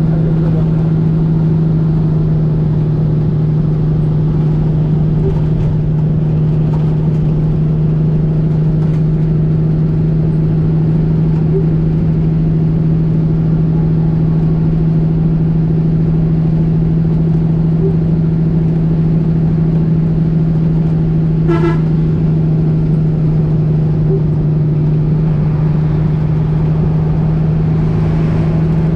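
Bus engine droning at a steady pitch in the cab while cruising, over road and rain noise. A vehicle horn gives one short toot about three-quarters of the way through.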